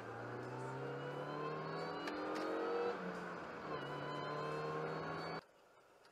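Car engine accelerating, its pitch rising as it pulls past a van, falling once at a gear change about three seconds in and then rising again. It cuts off suddenly near the end.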